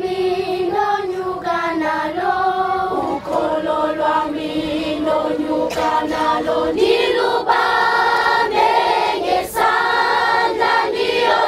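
Children's school choir singing together, holding long notes that shift in pitch every second or so.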